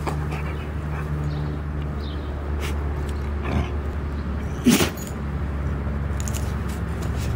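A dog playing with a ferret gives one short, loud vocal sound about four and a half seconds in, over a steady low hum and faint scattered clicks and rustles.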